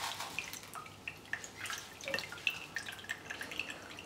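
Copper sulphate solution dripping from a squeezed wad of wet activated charcoal through a stainless-steel cone filter into a glass of the solution: a quick, uneven run of small drops, several a second.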